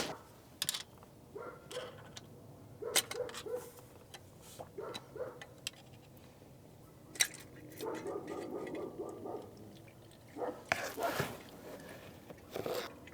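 Scattered light clicks, clinks and knocks of tools and small metal parts being handled while a Carter AFB carburetor is taken apart, with a louder rustle and clatter about eleven seconds in.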